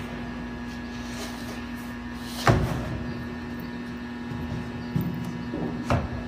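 Knocks and bumps from a large insulated cold-room panel being pushed into place by hand: one loud knock about two and a half seconds in and two lighter ones near the end, over a steady hum.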